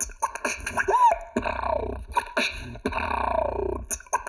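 D-low beatboxing: quick, rhythmic mouth-made hits and snare-like sounds over a sustained low bass hum, with a short pitched swoop that rises and falls about a second in.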